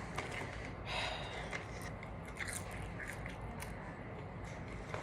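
Close-up eating sounds: a person chewing with small wet clicks and crunches, and a brief rustle about a second in.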